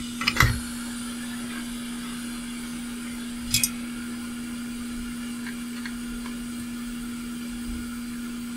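Hot air rework station's blower fan running with a steady hum. A couple of light knocks just after the start and a sharp click about three and a half seconds in.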